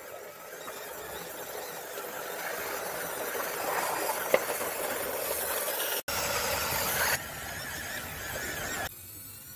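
3D-printed RC model KV-1 tank running: its small electric drive motors and printed gears whining while the plastic tracks grind over the wood, with a sharp click about four seconds in. The sound changes abruptly at cuts about six, seven and nine seconds in.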